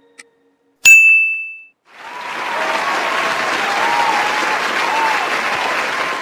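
A single bright bell ding, ringing out for under a second, marking that the countdown timer has run out. Then a sound effect of a crowd applauding and cheering for about four and a half seconds, as the answer appears.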